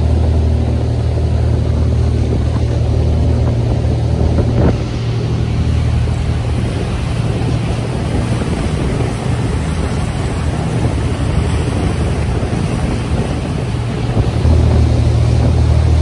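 Fishing boat's engine running under way, a steady low drone, with wind on the microphone and water rushing past the hull. The drone weakens for a stretch in the middle and comes back strongly near the end.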